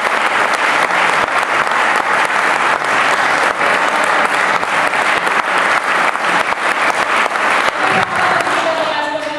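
Audience applauding, many hands clapping steadily, easing slightly near the end.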